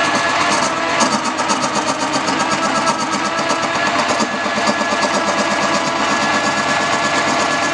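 Wood-turning lathe running steadily, a constant motor tone with a fast, even ticking.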